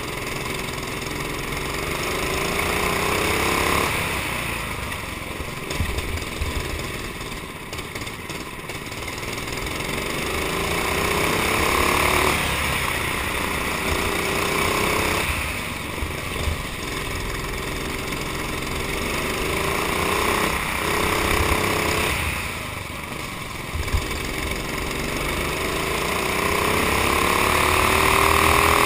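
Honda GX390 single-cylinder four-stroke kart engine heard onboard, rising steadily in pitch under full throttle and dropping back each time the throttle is lifted, several times over.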